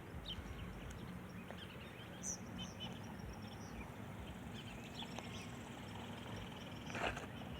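Faint open-air ambience: scattered small bird chirps over a low steady rumble, with a brief louder sound near the end.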